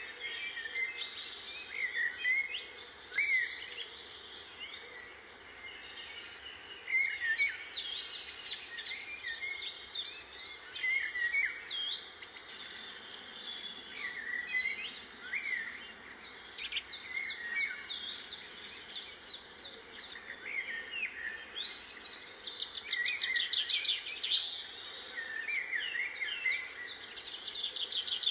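Small birds chirping and calling throughout, with many short gliding notes and a rapid trill near the end, over a faint steady outdoor background hiss.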